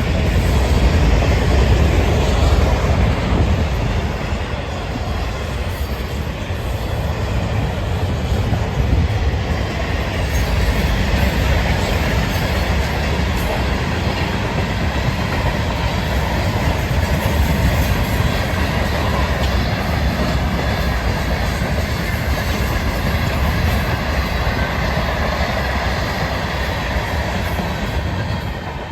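Freight train cars rolling past on the rails: a loud, steady noise of wheels on track, heaviest in the low end.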